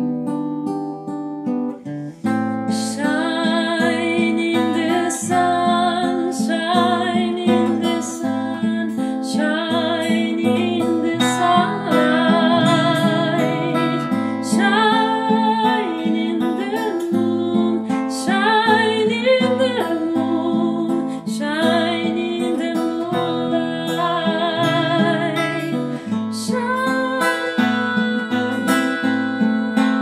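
Acoustic guitar playing with a woman singing over it; the voice comes in about two seconds in and holds long notes with vibrato.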